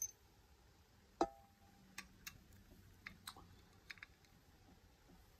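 Faint, scattered metal clicks and taps from a lock cylinder being handled and set into a small vise's jaws. There is one sharper click about a second in, then a few lighter ticks.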